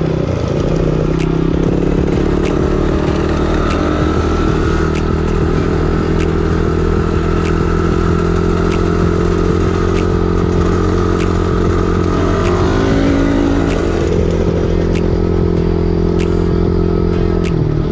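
Off-road vehicle engine running steadily at trail-riding speed, close and loud, with its note wavering briefly about two-thirds of the way through. A faint tick repeats about every second and a quarter.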